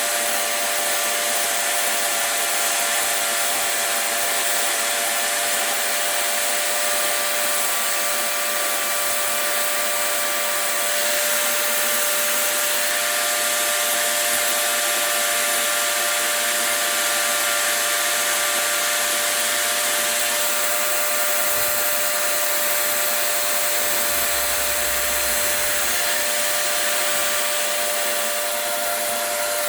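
High-speed electric power tool running steadily with a constant high whine, working wood.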